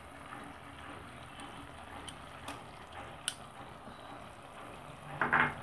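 Fried onions tipped from a bowl into a pan of simmering gravy: a few faint taps of the bowl and spoon over a low simmering hiss.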